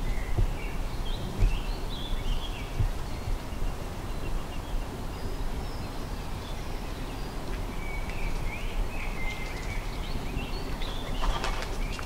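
Small woodland songbirds singing and chirping in short, varied phrases, with a brief harsher rattle near the end. A low rumble with small thumps sits underneath.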